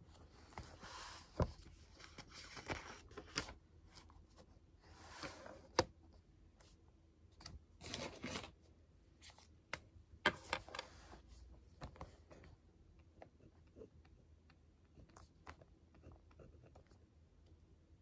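Pages of a thick paper notebook being flipped and rustled, about five rustling swishes with a few sharp taps in the first half. After that come only light pen taps and scratches on paper.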